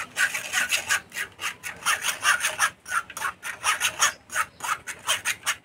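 Metal spatula rubbing and scraping wet ground mustard paste against a stainless-steel wire-mesh strainer in quick repeated rasping strokes, pressing the liquid through and holding back the mustard husks.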